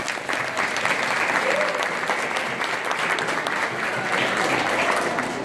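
A large audience of schoolchildren applauding, a dense run of hand claps with voices mixed in.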